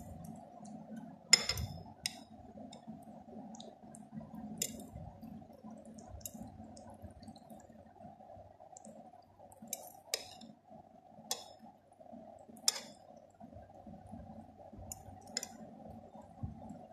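Scattered sharp clinks against a glass bowl, about nine in all, the loudest about a second in, over a steady faint background hum.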